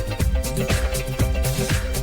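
Upbeat disco-style background music with a steady beat.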